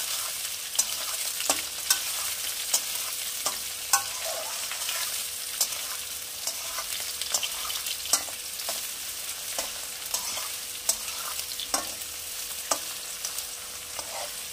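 Cauliflower, carrots, beans and green capsicum sizzling in oil in a metal kadai, stirred with a metal spatula that scrapes and clicks against the pan about once a second over a steady frying hiss.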